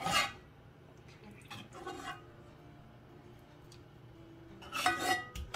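Serving spoon clinking and scraping against a pan and baking tray as mushroom sauce is spooned onto sliced potatoes, with wet plops of sauce. There is a short clatter at the start, a softer one about 2 s in, and another clatter near the end.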